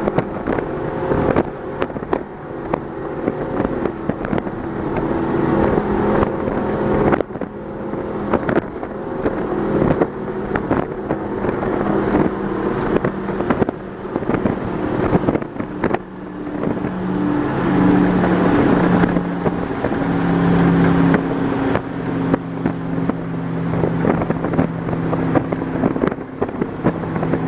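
Twin 496 engines of a Donzi ZR powerboat running at speed, their tones wavering and stepping in pitch in the second half. Frequent sharp crackles sound over the engines.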